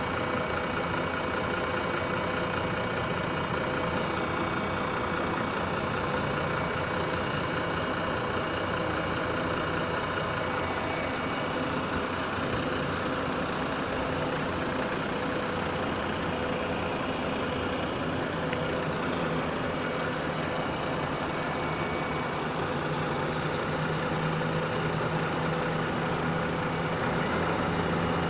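City buses idling at a stop: a steady diesel engine rumble with a constant hum, and a deeper engine note that grows louder over the last few seconds.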